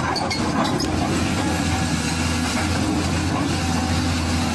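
Steady, low engine hum like a heavy machine running, with a few light clicks in the first second.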